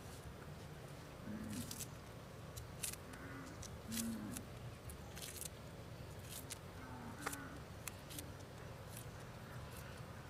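Wood fire crackling faintly under a wok of eggs simmering in dark braising sauce: scattered sharp clicks and pops, with a few short low blips.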